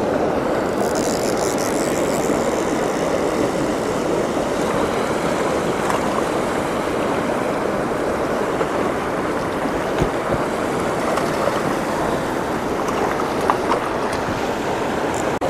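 Small mountain stream rushing over boulders and little cascades: a steady, even rushing of water, with a couple of faint knocks in the second half.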